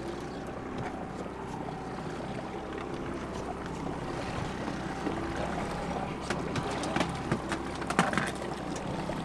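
Boat engine running steadily at trolling speed, a constant low hum. In the second half come several sharp splashes as a hooked king salmon thrashes at the surface beside the hull.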